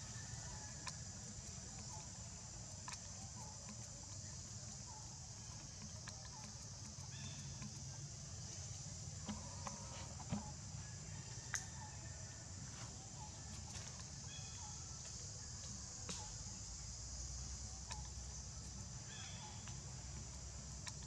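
Tree-canopy ambience: a steady high insect drone, with short high chirping calls every few seconds and a few sharp clicks, including a loud one about eleven seconds in.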